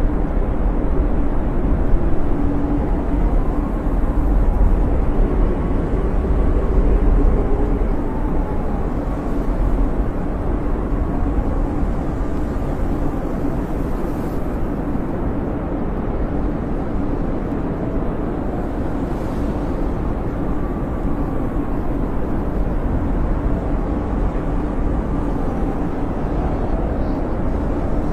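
Blizzard wind blowing hard and steadily, deep and full, with faint wavering whistles in it; a little stronger for the first several seconds.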